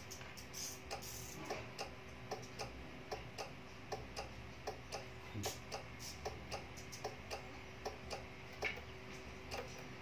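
Steady, regular ticking, two ticks roughly every three quarters of a second, over a faint steady hum.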